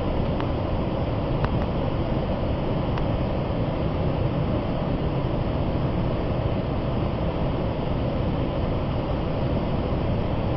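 Tinap Saitar, a large waterfall, pouring steadily: an even, unbroken rush of falling water, strongest in the low and middle range.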